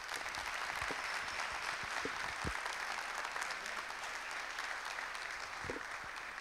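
Audience applauding, many hands clapping together in a dense, steady patter at the close of a talk.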